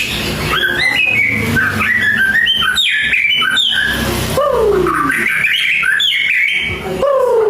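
White-rumped shama (murai batu) singing a fast, varied song of whistled notes and pitch glides, with harsher notes mixed in. A long falling whistle comes about halfway through and again near the end. This is a shama in full song, packed with fill phrases, of the kind played as a lure to set other shamas singing.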